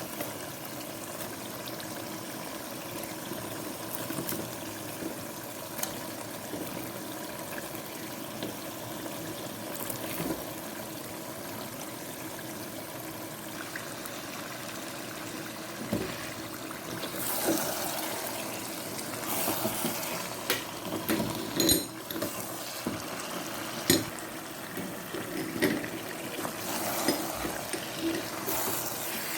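Sauce bubbling at a simmer in a pot. From about halfway, a spoon stirs and scrapes against the pot, with scattered clinks.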